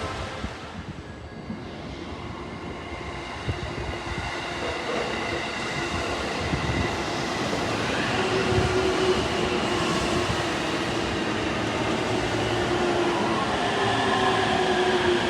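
Electric train approaching on the rails, growing steadily louder, with a few steady whining tones over the running noise.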